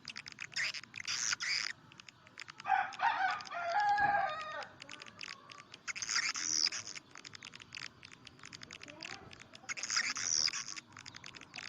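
Swiftlet lure-call recording: a fast run of dry clicks with bursts of buzzy, high twittering chirps about a second in, around six seconds in and around ten seconds in. A longer, lower pitched call with overtones sounds between about three and five seconds in.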